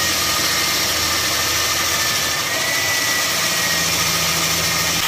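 Electric core drill with a large core bit running at steady speed, boring into the wall. A constant motor hum with a faint high whine on top.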